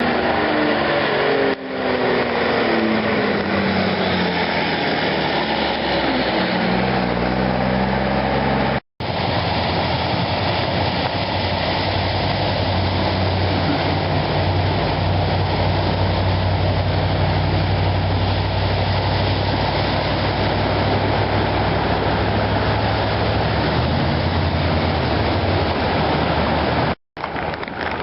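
Motor vehicle engine over a constant rushing noise: a drone falling in pitch as a vehicle passes in the first few seconds, then a steady low engine hum for about ten seconds in the middle.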